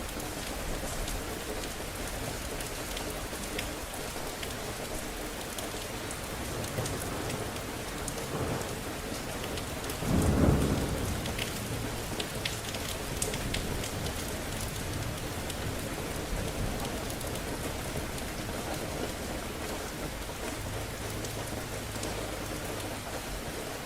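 Steady rain falling, with scattered drop ticks, and one low clap of thunder about ten seconds in that rumbles for a second or so.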